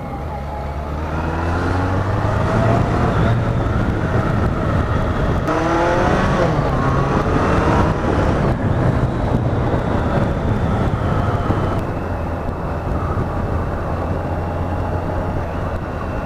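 1986 BMW K100RS's four-cylinder engine pulling under acceleration, rising in pitch twice through the gears, then settling to a steady cruise, with wind rushing past.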